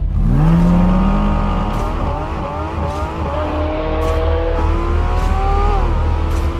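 Porsche 718 Cayman GT4 RS's naturally aspirated 4.0-litre flat-six firing up with a quick rev. It then accelerates hard, its pitch climbing and dropping back at each upshift, about three times.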